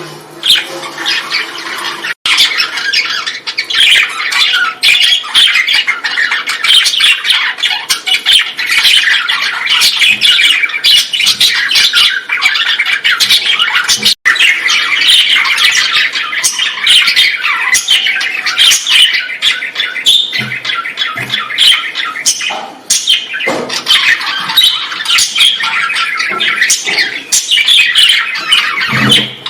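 A colony of many small birds squawking and chattering at once, a dense, continuous din of overlapping calls.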